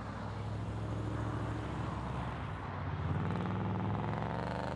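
A vehicle engine running steadily, then revving up about three seconds in, its pitch rising and holding higher.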